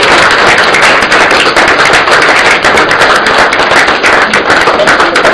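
Audience applauding loudly: many hands clapping in a dense, steady patter.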